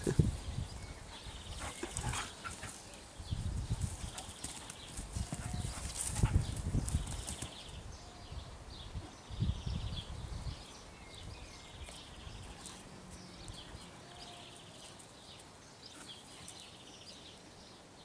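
Two dogs playing: scuffling and paws thudding on the ground in irregular bursts, settling down after about ten seconds. Short high bird trills come again and again in the background.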